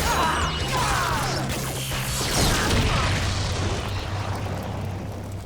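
Action-show fight sound effects: crashes and impacts with a few short whooshing glides, over a steady low music bed.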